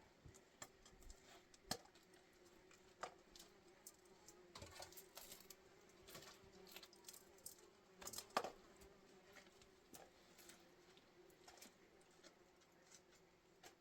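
Near silence with faint, scattered small clicks and taps, the clearest about eight seconds in.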